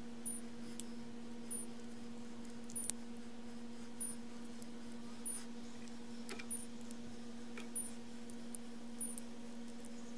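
Scattered light clicks from handling the parts of a Leatherman multitool, over a steady low hum. A faint high chirp repeats about once a second throughout.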